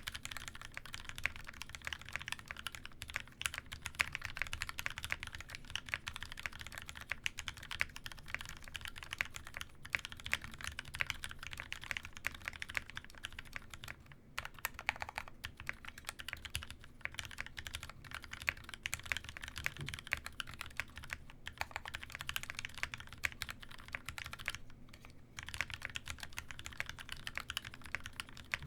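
Continuous typing on a Baka60 60% mechanical keyboard with Gateron Yellow linear switches lubed with Krytox 205g0: a steady clatter of keystrokes, with a short pause about halfway and another near the end.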